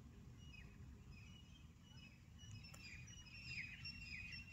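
Near silence with faint birds chirping, the short chirps coming more often in the second half.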